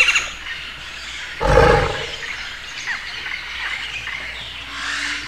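A tiger growls once, loud and deep, about a second and a half in, with a quieter background and faint chirps around it.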